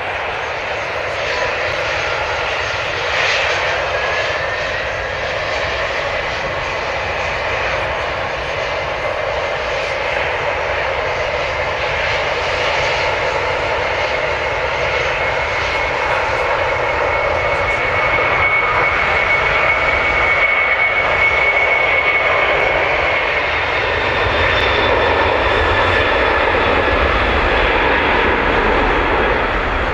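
Airliner engines running on the runway: steady engine noise with a high whine that holds for several seconds in the middle. A deeper rumble builds near the end as a twin-engine jet starts its takeoff roll.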